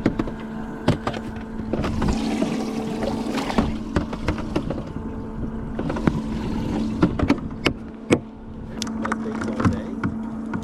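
A jon boat's motor running with a steady hum, with scattered clicks and knocks on the boat.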